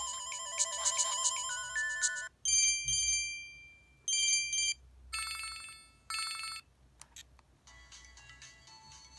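LG LB6300 mobile phone's built-in ringtones and alert sounds, played one after another. A melodic ringtone ends about two seconds in. Three short chimes follow about a second or more apart, then a couple of clicks, and a quieter new melody starts near the end.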